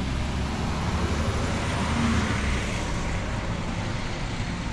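A truck driving past on the road: a steady rumble of engine and tyre noise that swells a little in the middle as it passes.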